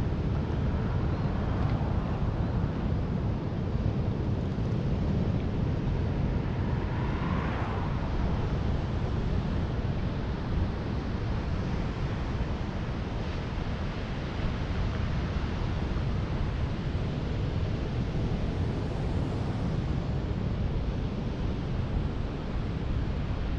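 Steady wind rushing over the microphone of a moving electric mountain bike, a constant low rumble. A short, higher-pitched sound comes through about seven seconds in.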